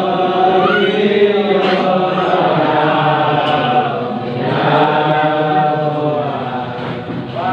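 A small group of young men singing a praise song in the Nduga language without accompaniment, chant-like, holding long notes together.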